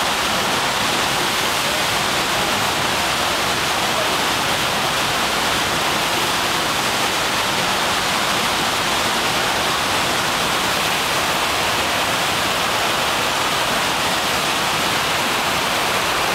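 Steady rushing of fast whitewater pouring through the Eisbach river's standing surf wave, an even, unbroken noise with no let-up.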